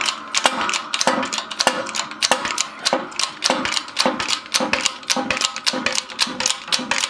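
Shop press being worked to push the wheel bearing out of an ATV rear bearing carrier, its handle mechanism ratcheting in rapid, even clicks.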